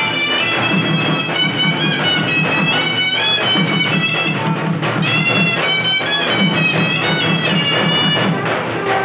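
Ceremonial music: a shrill reed wind instrument, shehnai-style, plays a wavering melody over a repeating drum pattern. The melody breaks off shortly before the end while the drum carries on.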